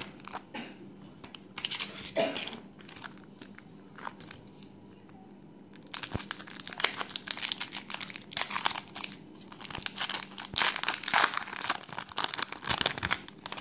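Foil trading-card pack wrappers crinkling as they are handled and torn open, in a short bout about 2 seconds in and then in a long busy stretch from about 6 seconds in until near the end.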